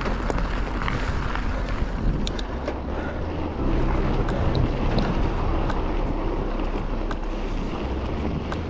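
Wind buffeting a helmet-mounted action camera's microphone while a mountain bike rolls over a rocky trail, with scattered sharp clicks and rattles from the bike.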